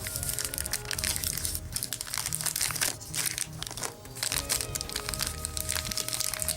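Trading-card pack wrapper crinkling and crackling as it is torn open and handled, over steady background music.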